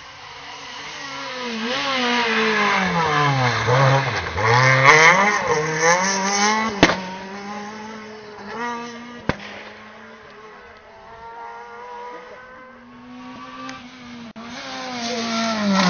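Rally car engine rising as it approaches and revving hard, its revs dropping and climbing through gear changes, with two sharp cracks about seven and nine seconds in, then fading away at steady revs; another car's engine comes up near the end.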